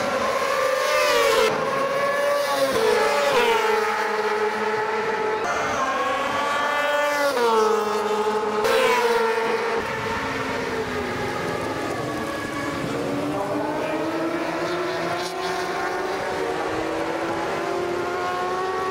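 Race motorcycle engines at high revs in a close pack. In the first half the pitch climbs and drops sharply several times as the riders shift up. Later the engine note is steadier and rises slowly.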